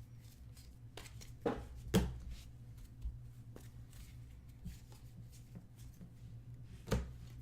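Trading cards being handled: a few sharp clicks and taps as cards are flipped and set down, over a steady low hum.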